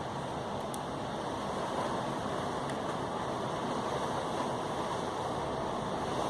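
Heavy thunderstorm rain falling steadily.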